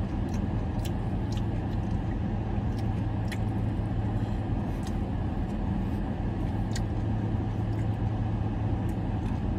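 Steady low hum of a car idling, heard inside the cabin. A few faint clicks of a fork against food and chewing are heard over it.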